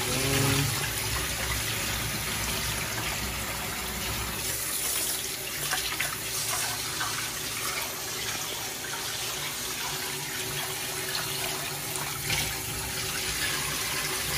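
Kitchen tap running into a rice cooker's metal inner pot while rice is washed by hand, water swishing and splashing in the pot and spilling into a stainless steel sink as the pot is tipped to pour the rinse water off.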